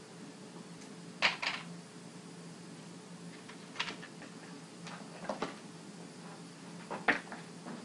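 A handful of short, sharp clicks and taps, loudest about a second in and near the end, over a steady low hum.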